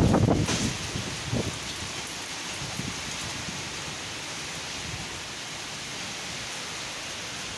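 Steady rain in strong wind, a continuous even hiss of falling rain. A loud low rumble comes in the first second and a smaller one about a second later.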